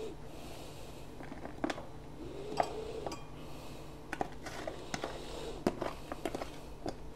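Light clicks and taps of a metal utensil against a plastic container as cut cheese is picked and scraped out, over a steady low hum.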